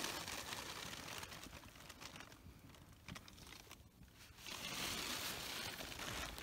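Rustling and crinkling of nylon clothing and gear as someone shifts about in a small tent, with scattered faint clicks; it swells again about four and a half seconds in.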